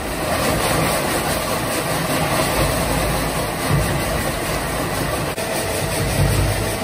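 Industrial depackaging machine running steadily, shredding cereal cartons and separating the cereal from the packaging: a loud, even mechanical noise with a few low thumps.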